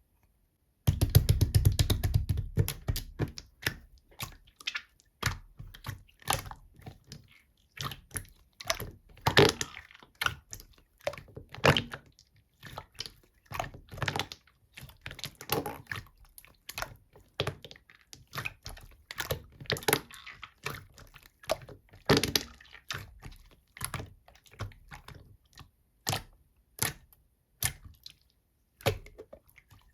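Slime being squished and pressed by hand, making a run of sticky clicks and small pops: a dense burst about a second in, then irregular clicks every second or so.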